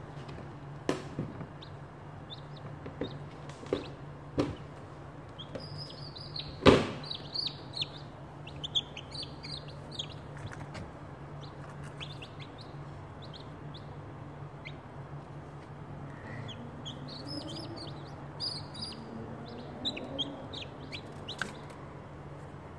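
Newly hatched chicks peeping in short, high chirps, in two spells, over a steady low hum. Several sharp knocks, the loudest about seven seconds in.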